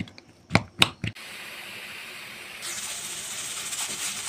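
Three sharp clinks of kitchenware, then a steady hiss of steam from cooking rice. The hiss grows louder and higher about two and a half seconds in.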